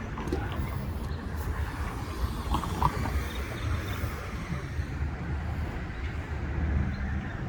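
Outdoor street sound dominated by a steady low rumble of vehicle traffic, with a few faint brief higher tones about two and a half to three seconds in.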